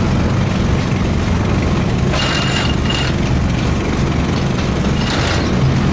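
Heavy machine engine at concrete casting work, running steadily with a low drone. Two brief higher, noisy bursts come in about two seconds and five seconds in.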